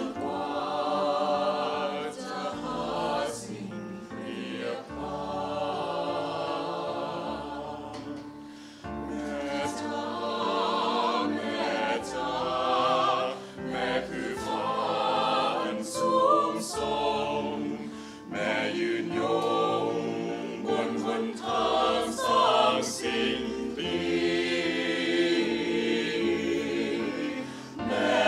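A mixed choir of women's and men's voices singing together in harmony, in sustained phrases with brief breaths between them.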